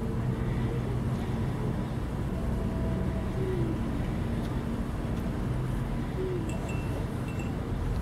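A steady low hum over a rumble, with a few short, faint falling sounds.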